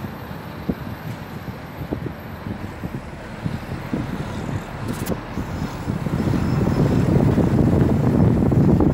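Low rumble of road and wind noise from a moving vehicle, with wind buffeting the microphone; it grows louder about six seconds in.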